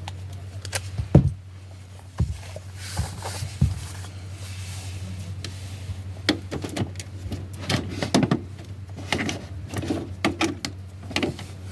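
A series of sharp plastic clicks and knocks from handling the newly wired plug and the coffee machine, with one loud knock about a second in and a quick run of clicks in the second half, over a steady low hum.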